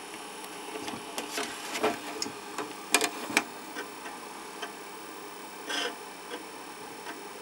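5.25-inch Apple II floppy disk drive booting a disk: the drive mechanism runs with irregular clicks and ticks of the read head stepping. It is the normal sound of a working Apple II drive.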